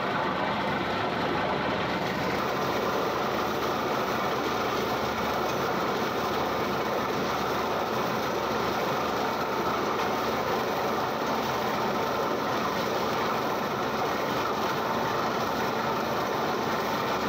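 Borewell drilling rig running steadily while air-drilling: a loud, unbroken machine noise from the rig and its air supply, with rock dust and cuttings blasting out around the turning drill pipe at the well head.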